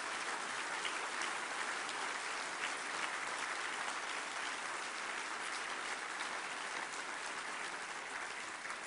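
Large audience applauding steadily, a dense even clapping that begins to die down near the end.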